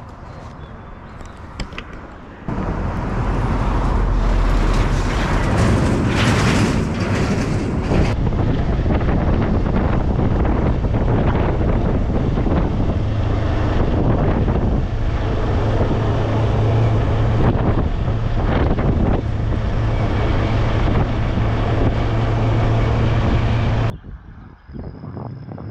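Wind buffeting the microphone on a moving bicycle, over the steady hum of road traffic. It starts loud a couple of seconds in and cuts off abruptly near the end.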